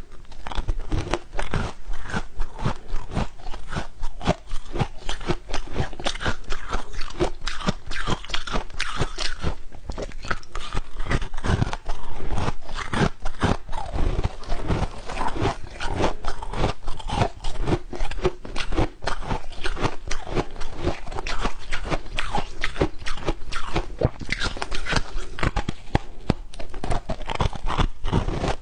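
A person biting and chewing soft, snow-like frozen ice close to a clip-on microphone: a continuous, dense run of crisp crunches.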